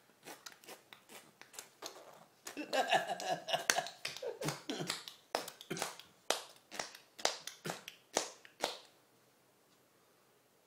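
A baby smacking its lips in kissing sounds: a string of sharp little smacks, about two a second, that stops about nine seconds in.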